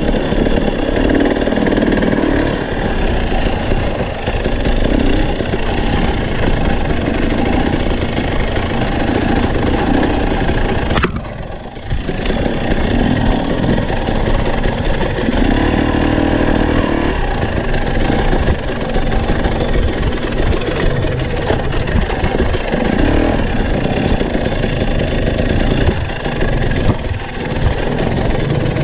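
Husqvarna TE250i single-cylinder two-stroke dirt bike engine revving up and down in short throttle bursts while riding slowly over loose rocks, with a brief drop in engine sound about eleven seconds in.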